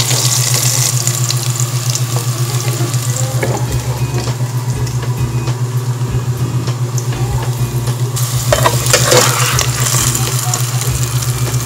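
Diced potatoes, carrots and bell pepper sizzling in butter in a metal wok as a metal spatula scrapes and lifts them out, with louder scrapes about three and a half and nine seconds in. A steady low hum runs underneath.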